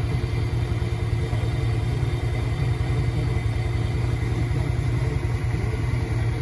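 Side-by-side UTV engine running steadily at a low, even speed.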